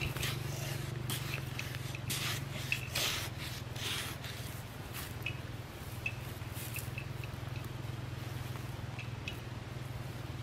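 Hands scraping and scooping soil out of a burrow, in short scratchy bursts that come mostly in the first half, over a steady low hum.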